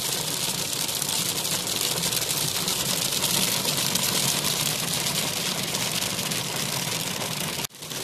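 Hail pelting a car's roof and windshield, heard from inside the car as a dense, steady rattle of tiny hits. It drops out for a moment near the end.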